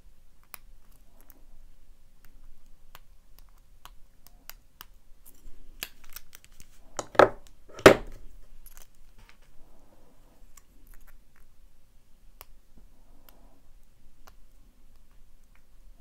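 Faint metallic clicks and scrapes of a hook pick and tension bar working the pins of a Master Lock Pro Series 6835 padlock. About seven seconds in come two loud knocks less than a second apart as the padlock is set down on the table, and the faint picking clicks start again.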